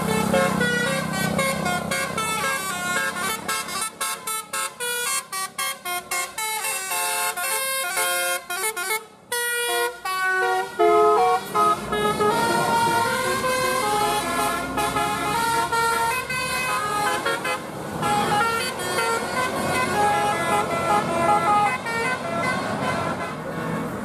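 Tour bus telolet horn, its roof-mounted trumpet horns playing a melody: a fast run of short stepped notes for the first half, then longer held notes. The bus is passing close by, and road noise takes over near the end.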